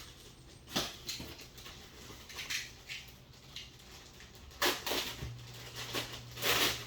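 Handling noise from unpacking foam model-jet parts: several brief rustles and scrapes of packaging, the loudest near the end, over a low steady hum.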